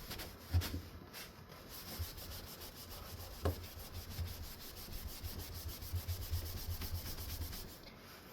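Cleaning wipe scrubbed hard back and forth over a wood-veneer ceiling fan blade in fast, even strokes, with light thuds of the blade on its work surface.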